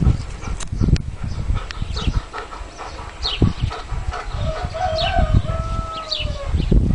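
A rooster crowing once, a long call starting about four seconds in that wavers and then slowly falls. Short, high, falling chirps come several times, over gusty low rumbling.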